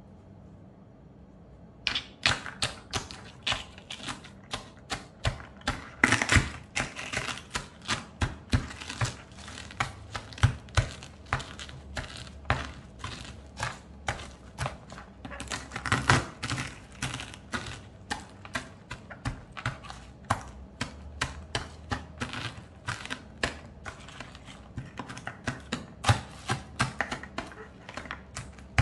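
Stone pestle pounding and crushing eggshells on an enamel plate: sharp taps and crunches, about three a second, starting about two seconds in.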